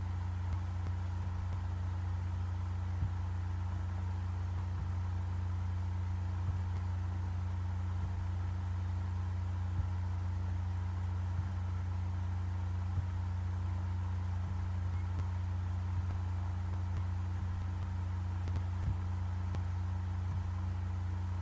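A steady low hum with a few faint clicks scattered through it.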